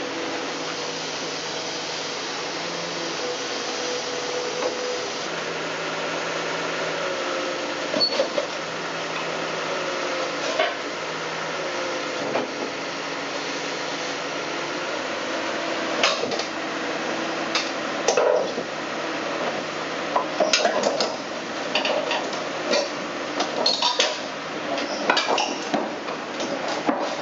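Scattered clinks and knocks of hard objects, growing more frequent in the second half, over a steady background hum.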